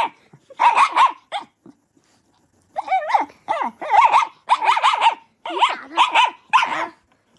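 A dog barking repeatedly in short, high-pitched barks, with a brief pause about a second and a half in before a longer, quicker run of barks.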